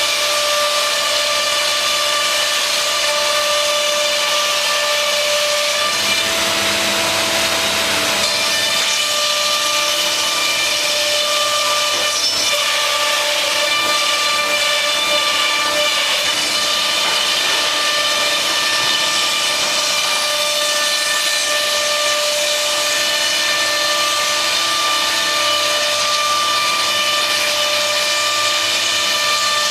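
C.R. Onsrud CNC router's spindle running and cutting, a steady high whine over loud cutting noise, its pitch shifting a few times as the cut changes.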